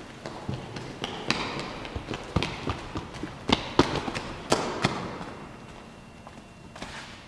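Irregular sharp knocks and thuds ringing on in the stone nave's echo, from performers running over the stone floor and a ball bouncing on it. The knocks come thickest in the first five seconds and thin out near the end.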